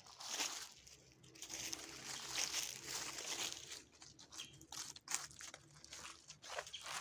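Footsteps crunching through dry fallen leaves on a path, a rustling crunch with each step.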